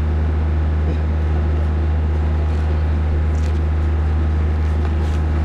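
Steady low mechanical drone, like an engine running without change.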